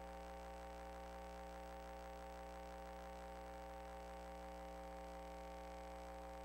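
Faint, steady electrical hum made of several unchanging tones, with nothing else happening.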